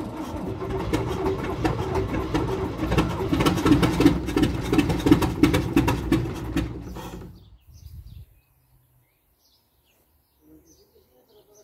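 Pegaso Cabezón truck's diesel engine running with a dense, heavy clatter, getting louder over the first few seconds, then dying away about seven seconds in. Faint bird chirps follow in the quiet.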